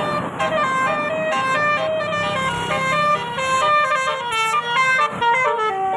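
Telolet basuri multi-tone horn playing a quick tune: short notes, several sounding together, stepping to new pitches several times a second. A low vehicle hum runs under the first half.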